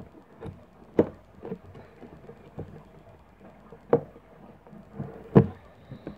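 Clear plastic lid being pressed and snapped onto a round black plastic container, then the closed container handled: a series of separate sharp plastic clicks and knocks, the loudest about a second in, near four seconds and a little after five seconds.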